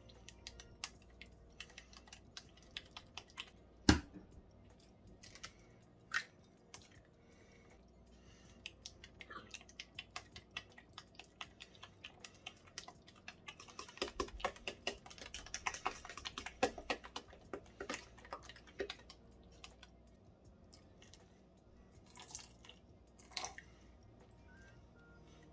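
A metal utensil stirring a thick, wet banana bread batter in a stainless steel mixing bowl, clicking and scraping against the bowl's sides as an egg is beaten in. There is one sharp knock against the bowl about four seconds in, and a busy stretch of rapid clicks about halfway through.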